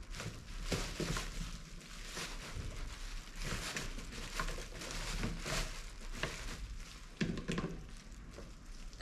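Irregular small clicks, rattles and scrapes of hands working plastic and metal parts of a car window regulator mechanism.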